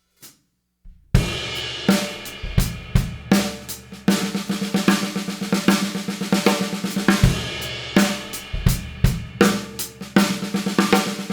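Pearl drum kit with a steel snare and Soultone cymbals playing the six-stroke roll fill (right, left, left, right, right, left) over and over, with the first stroke of each group accented and the rest played quietly. It starts about a second in with a loud hit, and cymbals ring throughout.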